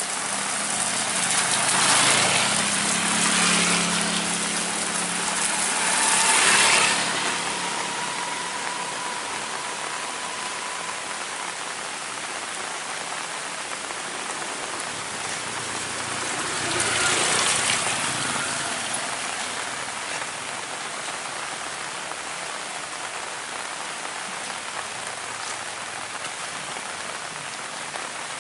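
Heavy rain falling steadily, with three louder swells in the first twenty seconds and a faint low hum under the first of them.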